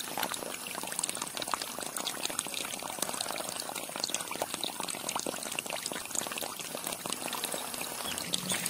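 Water pouring steadily from a small hose into a shallow pool of water, with a continuous splashing and trickling.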